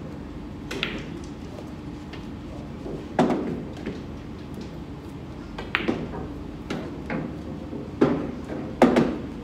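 Pool balls clacking in a 9-ball game: about seven sharp knocks of cue and balls striking, spaced unevenly, the loudest two near the end. A steady low hum runs beneath.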